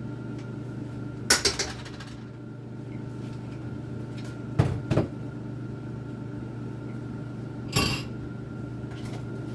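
Pots and utensils knocking and clinking while food is being cooked: a quick rattle of clicks about a second in, two dull knocks near the middle and one more near the end, over a steady low hum.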